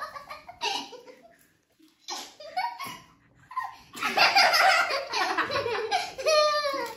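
Two children's voices in short exclamations, then loud laughter from about four seconds in.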